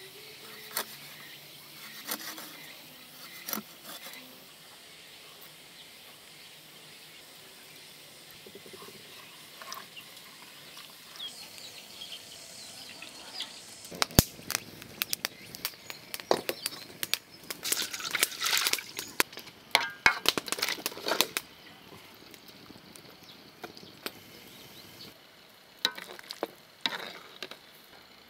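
A few light cleaver knocks on a wooden chopping board as a fish is cut. About halfway through, a wood fire starts crackling and popping in quick, irregular snaps for several seconds, and scattered clicks follow near the end.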